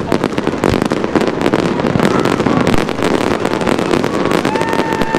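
Fireworks display: a dense, continuous run of sharp cracks and pops from bursting shells over a steady rumbling haze. Near the end a few steady held tones set in.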